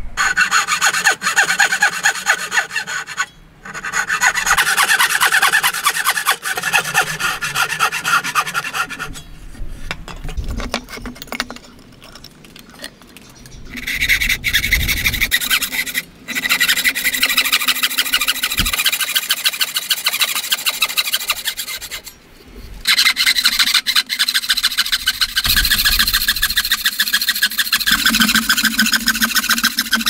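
Hand frame saw cutting through a wooden board with brisk, steady back-and-forth strokes of rasping teeth. The sawing stops briefly a few times and goes quieter for a stretch in the middle.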